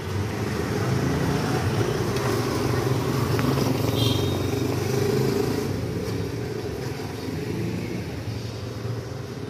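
A motorcycle engine running in the street below. It grows louder over the first few seconds and then slowly fades, like a bike passing through the lane.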